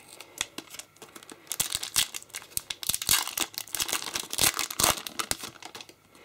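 A foil Yu-Gi-Oh booster pack wrapper being torn open and crinkled by hand, a dense run of crackling from about a second and a half in until near the end.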